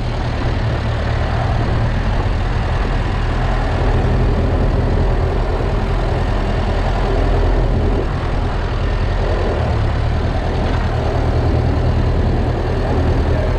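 Ferguson tractor engine running steadily with a low, even hum.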